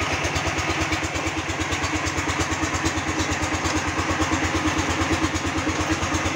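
Concrete mixer's engine running steadily, with an even low chugging beat while it mixes the batch.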